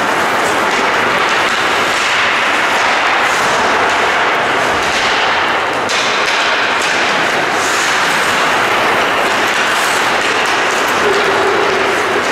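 Ice hockey rink ambience: a steady noisy wash of skates on the ice with scattered sharp knocks of sticks and puck.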